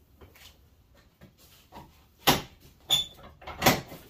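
Three sharp knocks of things being handled, starting about two seconds in and coming roughly every 0.7 s; the middle one carries a brief metallic ring.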